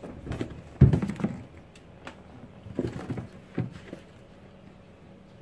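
A few short, soft knocks and thumps from a cardboard shoebox as a cat moves about inside it and pushes up the lid. The loudest knock comes about a second in, and the sounds die away after about four seconds.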